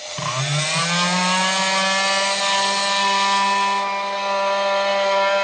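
Rockwell Sonicrafter F30 oscillating multi-tool switched on, its motor's buzz rising in pitch over the first half-second, then running steady and high while its blade scrapes rotted plywood off foam floor insulation.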